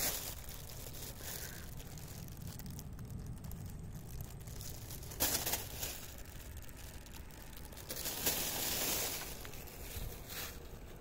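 Rustling and crinkling handling noises in a few short bouts, over a steady low rumble.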